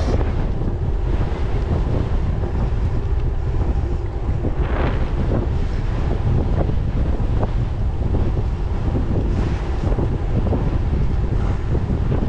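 Wind buffeting the microphone of a handlebar camera on an e-bike riding at about 26 km/h, a steady low rumble with short gusts about five and nine and a half seconds in. Small ticks and knocks from the bike on the road are scattered through it.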